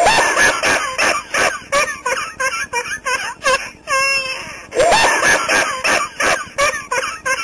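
High-pitched hysterical laughter: a rapid string of short 'ha' pulses with squealing rises and falls. It repeats as a loop about five seconds in.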